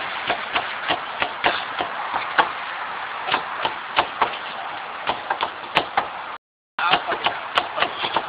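Repeated short knocks and taps over a steady hiss, coming roughly every third of a second and unevenly in strength. The sound cuts out completely for a moment about six and a half seconds in.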